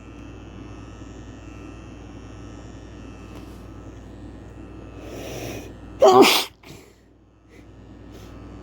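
A man sneezes once, loudly, about six seconds in, after a drawn-in breath that builds for about a second. The fit is brought on by chhikni sneezing powder. A steady low hum runs underneath.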